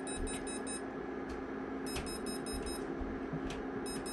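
An RF meter's detection beeper: a quick run of four or five high beeps about every two seconds, one run for each 3-microsecond pulse of the 2.4 GHz signal it is picking up. A steady low hum runs underneath.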